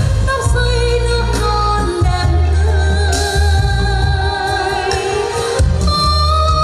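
A song with a sung voice holding wavering notes with vibrato over band accompaniment with a strong bass line.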